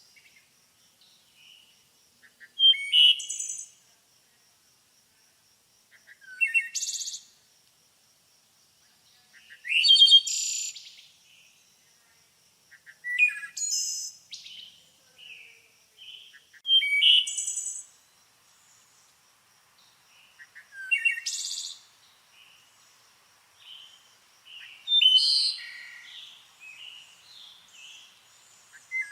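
A songbird singing short, high, rapid phrases of about a second each, repeated roughly every four seconds, with softer chirps between the phrases near the end.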